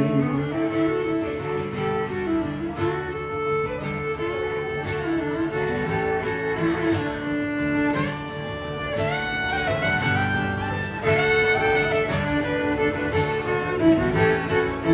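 A fiddle plays a sliding instrumental break over acoustic guitar accompaniment in a country song.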